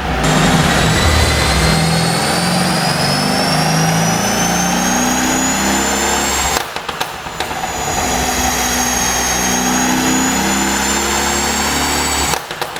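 Mercedes SL63 AMG's twin-turbo V8 pulling under load with a high whine rising slowly, broken twice by a burst of rapid exhaust pops and crackles: about six and a half seconds in, and again near the end. The pops come from a tune made to crackle when the throttle closes.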